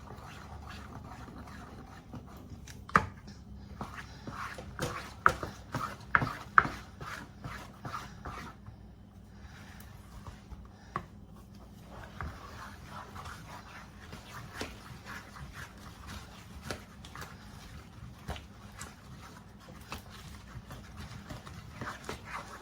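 Spoon stirring a thick praline candy mixture of sugar and pecans in a bowl, scraping and knocking against the bowl in irregular clicks, with a run of louder knocks about three to seven seconds in.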